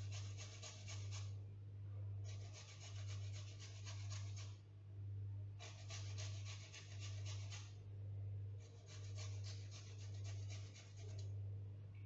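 Carrot being grated on a small flat stainless-steel hand grater: quick rasping strokes in four bursts of about two seconds each, with short pauses between. A steady low hum lies underneath.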